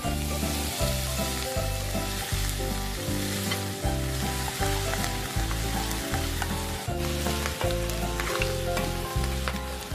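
Pressure-cooked pork hock sizzling in hot oil with sautéed onion and garlic as it is stirred in the pan, over background music with a steady bass line.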